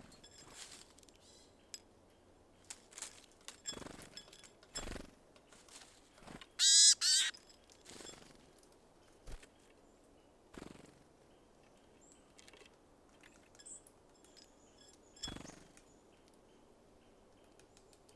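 A small songbird gives two short, loud, harsh calls in quick succession about seven seconds in. Scattered soft knocks and taps of birds at a feeder come before and after.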